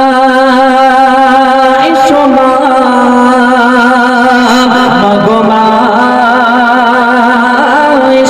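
A man's solo voice singing a Bengali gojol (Islamic devotional song) into a microphone, amplified over a PA. He holds long drawn-out notes with wavering ornaments and slow slides between pitches rather than clear words.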